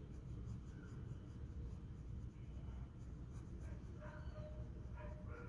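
Coloured pencil rubbing on paper in quick, repeated shading strokes, over a low steady hum.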